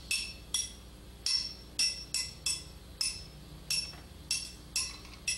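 Dripping sound effect made of high, glassy plinks that come about twice a second at uneven gaps, standing for the leaky pipes.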